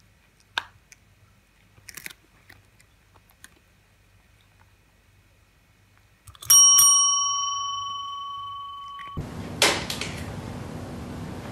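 A chrome service bell is struck and dings, ringing for about two and a half seconds before cutting off abruptly. After it comes a steady hiss with a sharp clack.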